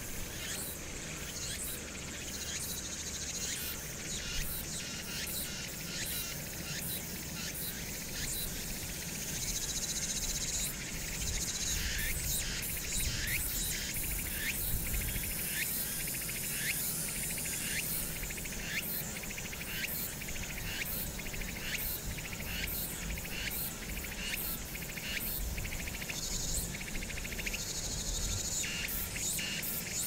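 A chorus of insects calling in rapid, high-pitched pulses, with a low rumble of wind on the microphone underneath.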